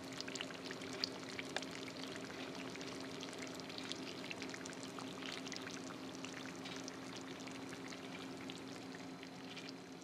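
A hot cheese-and-bacon-topped potato casserole, just out of the oven, sizzling quietly with many small crackles and pops over a steady low hum.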